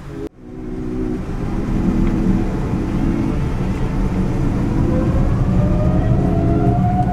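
Airliner's jet engines during the takeoff roll, heard from inside the cabin: a loud rumble that builds up after a sudden cut about a third of a second in, with an engine whine rising slowly in pitch over the second half. Background music with pulsing synth chords plays over it.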